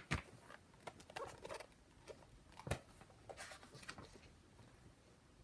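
Faint rustling and scattered light taps of handling noise, with a sharper knock right at the start and another about halfway through.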